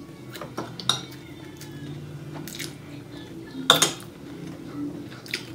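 Dishes clinking during a meal eaten by hand from ceramic bowls: a few short, sharp clicks and taps, the loudest nearly four seconds in.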